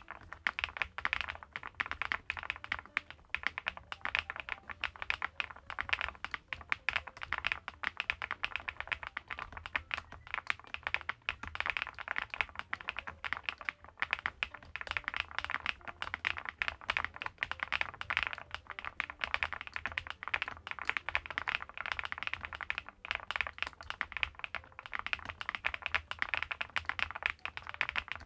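Continuous fast typing on a WEIKAV Record Alice V2 mechanical keyboard, a split Alice-layout board with an aluminium case and leaf-spring gasket mount: many keystrokes a second without a break.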